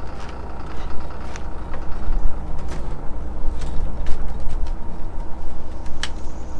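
An engine running steadily while the crated shaft hangs from the deck boom, with scattered clicks and knocks from the crate and rigging; the sharpest knock comes about six seconds in.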